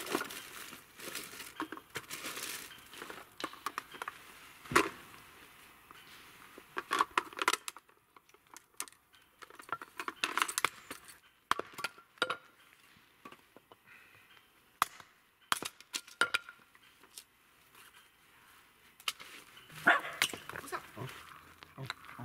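A small hatchet knocking into short birch offcuts on a wooden chopping block, splitting them into kindling. The knocks come singly and at uneven gaps, with quiet spells between them.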